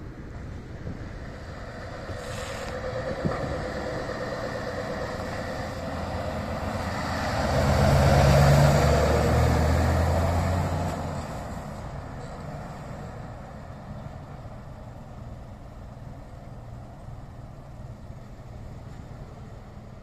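Scania S580 truck's V8 diesel engine pulling a semi-trailer past: the engine and tyres grow louder to a peak about eight to ten seconds in as the truck passes close, then fade as it drives away.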